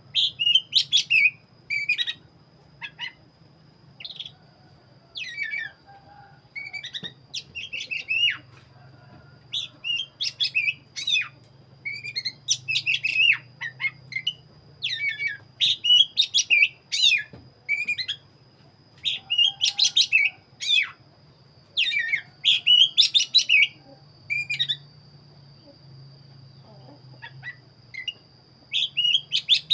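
Oriental magpie-robin (black-breasted kacer) singing: loud, rapid chirped and whistled phrases repeated again and again with short pauses, easing off for a few seconds near the end.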